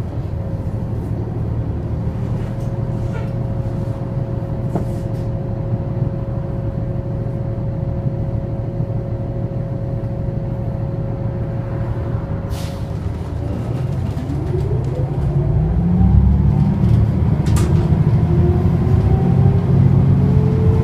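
Cabin sound of a New Flyer DE60LFR articulated diesel-electric hybrid bus: a low drivetrain rumble with a steady whine. About two thirds of the way through, the whine rises in pitch and the rumble grows louder as the bus accelerates. A couple of sharp rattling clicks come from the cabin.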